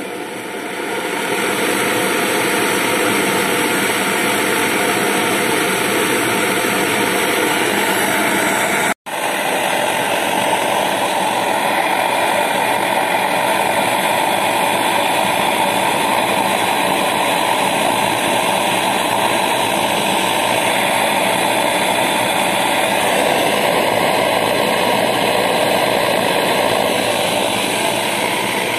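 Optimus 111B pressure stove's roarer burner running at full flame with a loud, steady roar. The sound swells over the first second or two and cuts out for an instant about nine seconds in.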